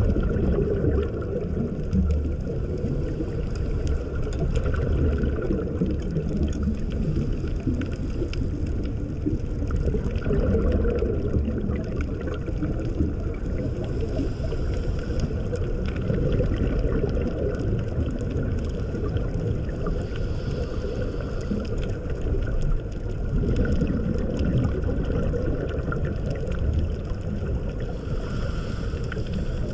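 Steady, low, muffled rumble of moving water.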